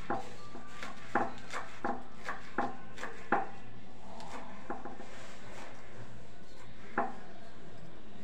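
Scattered light knocks and clicks of hands cutting vegetables over a plastic bowl, with utensils tapping. They come thick in the first three and a half seconds, with a single louder one near seven seconds.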